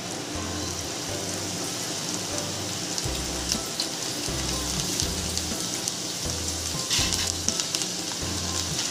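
Split moong dal deep-frying in hot oil inside a mesh strainer: a steady sizzling hiss full of small crackles, with a little louder burst of crackling about seven seconds in. Background music with a low bass line runs underneath.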